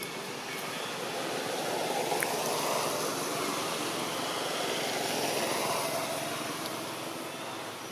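A passing motor vehicle: a steady rush of engine and road noise that swells from about a second and a half in, holds through the middle and fades away near the end.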